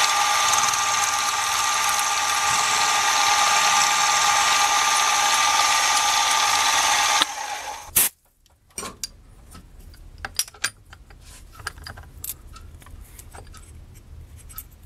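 Milling machine with a small end mill cutting bronze slider shoes: a loud, steady cutting whine that stops suddenly about seven seconds in. After a sharp click, it is much quieter, with scattered small clicks and taps.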